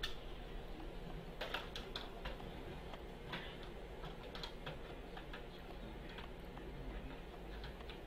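Scattered light clicks and taps as an Xbox 360 motherboard is set into the rework station's metal board holder and its clamps and supports are handled, with a cluster of clicks near two seconds in.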